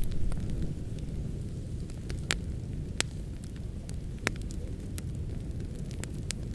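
Fireplace fire crackling: scattered sharp pops and snaps, the loudest a few seconds in, over a steady low rumble of the flames.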